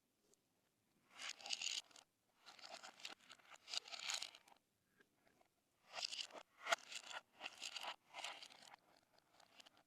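Slime being squished and stretched by hand: about five bursts of crackling, crunchy squishing with short pauses between them.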